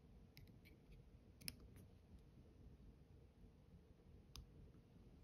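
Faint small clicks of fine scissors snipping crystal flash strands, several in the first two seconds and one more near the end.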